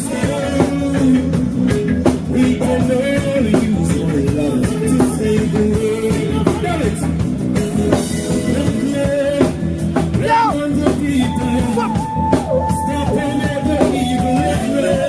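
A reggae song: a singer's melody over a full band with drums, running without a break and ending on long held notes.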